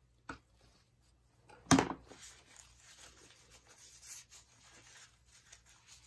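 A light click, then a sharp knock about two seconds in, followed by soft rubbing and rustling: things being handled by gloved hands on a work table.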